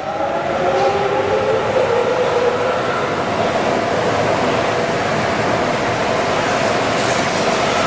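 Rubber-tyred Sapporo Subway Namboku Line train running along the platform, its motors whining in several steady tones that dip slightly in pitch over the first few seconds, over the noise of the tyres on the guideway.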